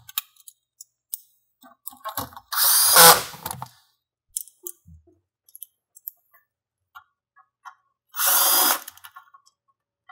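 Cordless drill-driver with a 10 mm socket running in two short bursts, about two and a half seconds in and again near the end, driving home the bolts that hold the HEPA filter housing. Each burst begins with a rising motor whine. Light clicks and handling knocks come in between.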